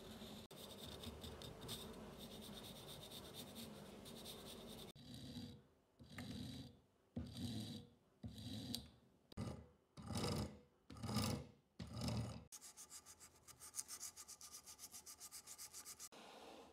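Hand file rasping across a softwood handle blank clamped in a vise: a steady fast scraping at first, then about eight separate slower push strokes, then a run of quick, short, even strokes near the end.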